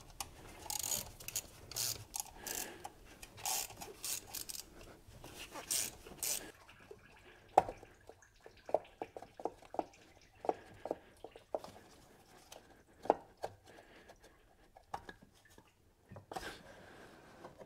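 Plastic water pump housing being wrestled off a VW 2.0T engine by hand: rubbing and scraping for the first six seconds or so, then a string of light knocks and clicks as the pump works loose.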